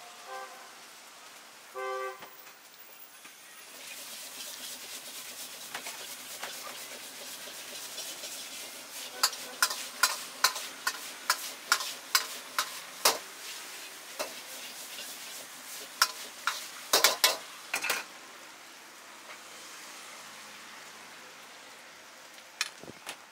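Noodles sizzling as they stir-fry in a wok over a gas burner, with a run of sharp metal clanks from the ladle striking the wok as they are tossed, between about 9 and 18 seconds in. A short horn-like toot sounds about two seconds in.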